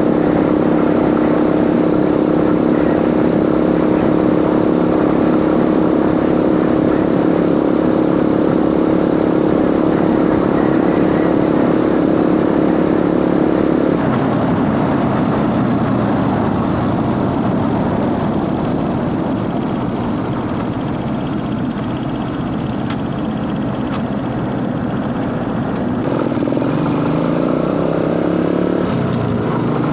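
Motorcycle engine running at a steady pitch, then about halfway the steady note drops away suddenly to a rougher, noisier sound, and near the end the engine pitch rises and falls again.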